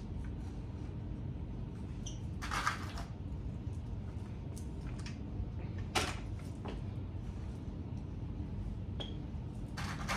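Faint handling noises as a mannequin's hair is combed and parted: a few brief rustles, about two and a half seconds in and near the end, and one sharp click about six seconds in, over a steady low hum.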